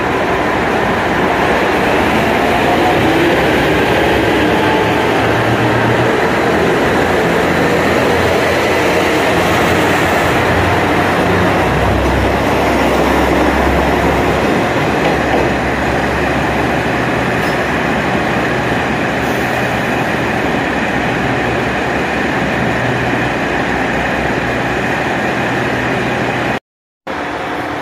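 JR Shikoku diesel railcar train pulling out of the platform and accelerating past, its engines running under load with a rising whine at first and a heavy low rumble as the cars go by. It eases slightly as the train moves off, then breaks off abruptly near the end.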